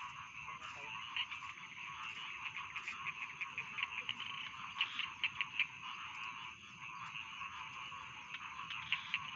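A chorus of many rice-paddy frogs calling at once, a dense overlapping clatter of short rapid croaks, with a thin steady high tone above it.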